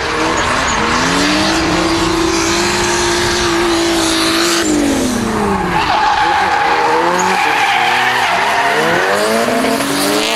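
Drift cars sliding in tandem: engines held at high revs with tyres screeching constantly. Revs drop off about halfway through, then climb again in several quick pulls near the end.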